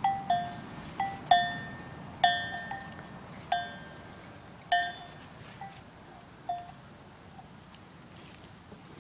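Metal bells clanking in irregular single strikes, each dying away quickly, at two slightly different pitches. The strikes come thick at first, thin out, and stop about seven seconds in.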